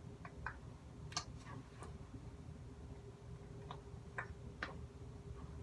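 Faint, irregular clicks and ticks from stirring and working sticky homemade slime in a container, over a steady low hum.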